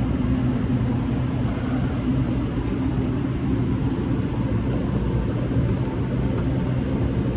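A steady low mechanical hum with a constant pitch, like a running engine or motor.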